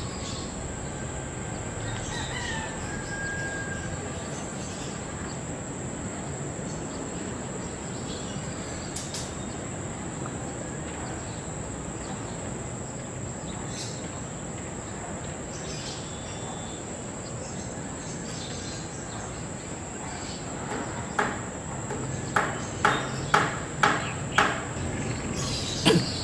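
Outdoor ambience of a steady high insect drone over a hiss, with a faint whistled bird note early on. Near the end comes a run of about six sharp, harsh notes roughly half a second apart, the loudest sounds here.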